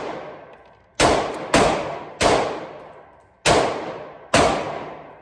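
Five pistol shots from a Glock 23, fired in an uneven string about a second apart, each followed by a fading echo.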